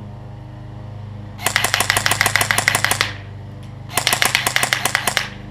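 Elite Force M4 CQB airsoft electric rifle (metal gearbox, 9.6 V battery) firing two rapid strings of shots, each lasting about a second and a half, with a short pause between them.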